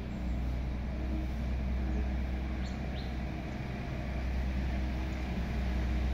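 Steady low outdoor rumble, with a couple of faint bird chirps about three seconds in.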